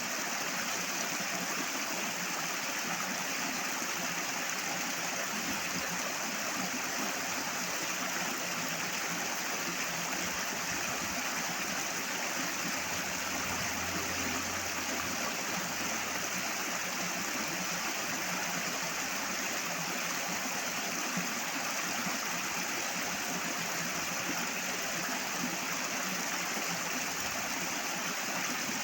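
Flowing water rushing steadily, a dense even noise that does not change.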